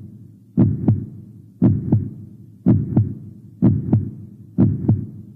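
Heartbeat sound effect: a steady lub-dub double beat, five double beats about a second apart.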